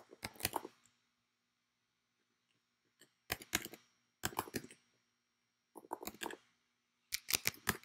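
Typing on a computer keyboard in five short bursts of keystrokes with pauses between them.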